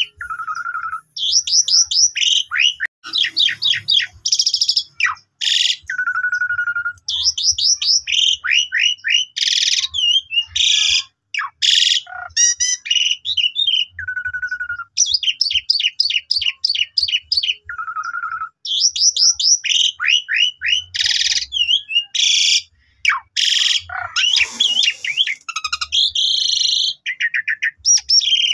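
Asian pied starling singing a long, varied song: quick runs of falling chirps, steady whistled notes, and short harsh buzzy notes, with only brief pauses.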